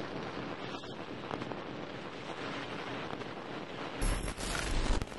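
Glitch-style outro sound effect: a steady noisy rush like static, then about four seconds in a sudden louder rumbling burst with sharp crackles.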